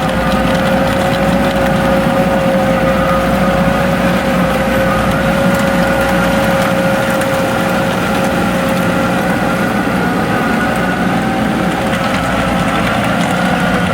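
Wacker Neuson ET65 excavator running steadily, its diesel engine rumbling under a constant high whine, as the machine is test-run after a track and idler change.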